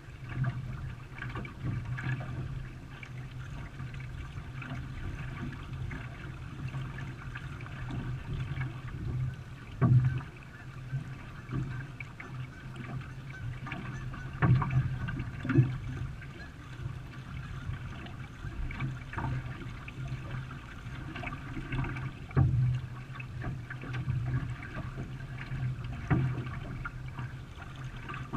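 Canoe being paddled in a race: water swishing and splashing from the paddle strokes over a steady low rumble, with a few sharper, louder splashes or knocks along the way.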